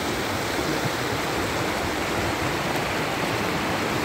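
Mountain stream rushing over rocks, a steady, unbroken sound of flowing water.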